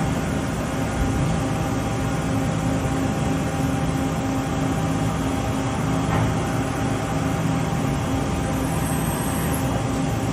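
Matsuura HPLUS-500 CNC horizontal machining center running a cycle, coolant spraying inside the enclosure: a steady hum with a few held tones over a wash of spray noise.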